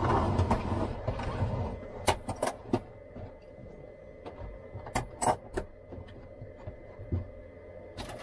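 Small metal hardware being handled: a rustle for the first second and a half, then a scatter of sharp metallic clicks and clinks as self-tapping tek screws and tools are picked up and set down.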